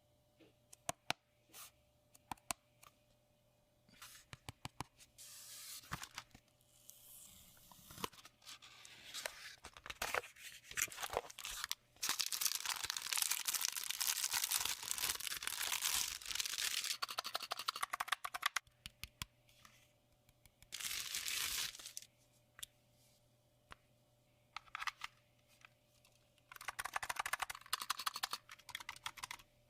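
Packaging being handled and torn open: scattered clicks and taps, then several stretches of tearing and crinkling, the longest lasting about five seconds.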